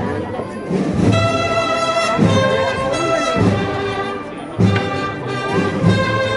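Brass music with sustained horn notes over a low, repeated beat.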